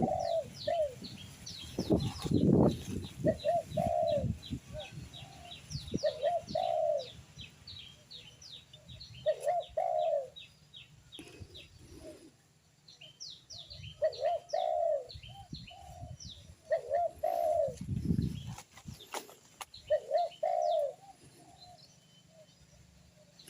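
A dove cooing over and over, one phrase every two seconds or so, while small birds chirp quickly and high above it. A few low thumps come near the start and again about two-thirds of the way through.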